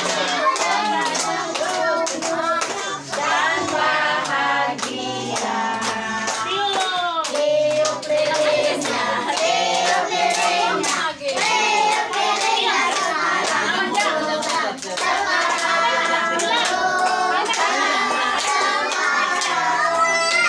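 A group of adults and children singing a birthday song together, clapping their hands along with it.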